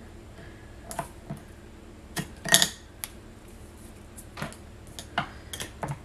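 Handling of cardstock pieces and a roll of double-sided tape on a cutting mat: scattered clicks and taps, with a short rustle about two and a half seconds in.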